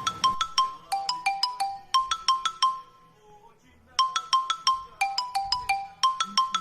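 Background music: a bright bell-like melody of quick, evenly paced notes, like a ringtone jingle. It breaks off for about a second in the middle, then starts again.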